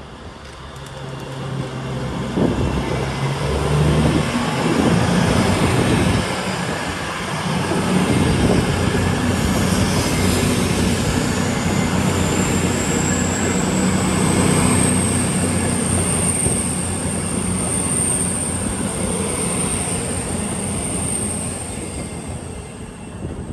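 A train running past, the noise swelling over the first few seconds, with a high-pitched wheel squeal that comes in about halfway through and holds.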